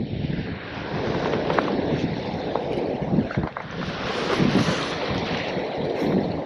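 Steady wind rushing over the microphone, mixed with choppy surf washing below.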